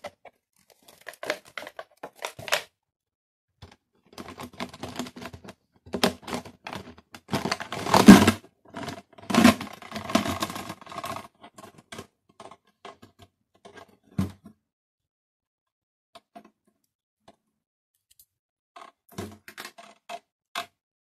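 Bicycle chain being pulled out of a plastic bottle after a soak in extraction benzine: the links clatter and scrape against the bottle in irregular bursts, loudest in the middle, then only a few scattered clicks.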